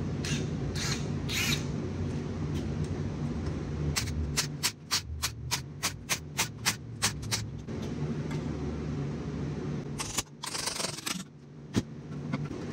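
A hand ratchet clicks in a run of about a dozen clicks, roughly four a second, amid metal scraping and handling noises, as the rear differential cover bolts are worked off. A steady shop fan hum runs underneath.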